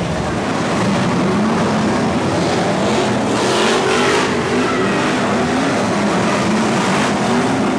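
A pack of BriSCA F1 stock cars racing past together, their V8 engines revving hard. The roar swells as cars pass about three to four seconds in.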